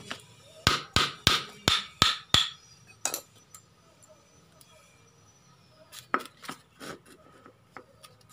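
Hammer blows on a car air-conditioning compressor being taken apart: six quick strikes, about three a second, then one more a moment later, and a few lighter knocks near the end.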